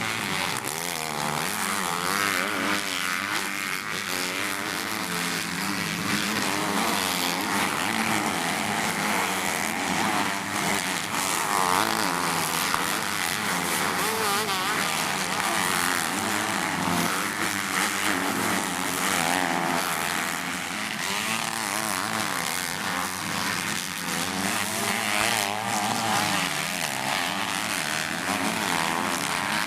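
Several motocross bikes racing, their engines revving up and down, with many engine notes overlapping and wavering throughout.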